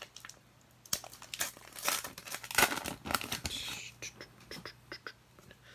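Plastic-foil trading card pack wrapper being torn open and crinkled, with irregular rustles and sharp crackles.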